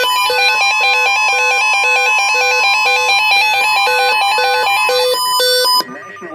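A bright electronic tune of quick, regularly repeating beeping notes over a held tone, cutting off abruptly near the end.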